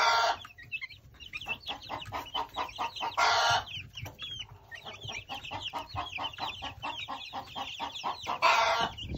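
A brooder full of young pullet chicks peeping: many short, falling chirps overlapping several times a second. Three louder, longer sounds stand out at the start, about three seconds in, and near the end.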